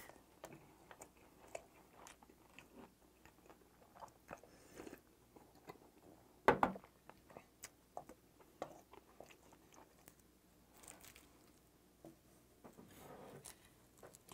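Close-up chewing of a mouthful of mixed rice, with wet mouth clicks and smacks, and a wooden spoon scraping in a stainless steel bowl. One much louder knock comes about halfway through.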